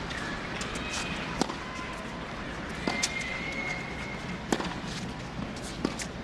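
Tennis rally on a hard court: sharp racket-on-ball strikes about every one and a half seconds, with bounces and brief high squeaks of sneakers between them, over a steady crowd hum.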